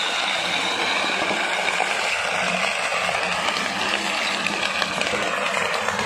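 Road roller running over glass liquor bottles: a steady engine hum under a dense crackle of glass crunching and breaking.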